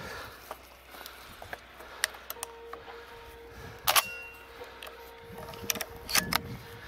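Scattered light clicks and crunches of footsteps on dry, stony ground, the sharpest about four seconds in, over a faint steady tone.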